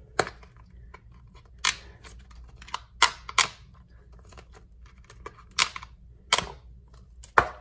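Plastic lid of a Puppy Scoops ice cream cup being pried at around its rim, giving about seven sharp plastic clicks and snaps at uneven intervals.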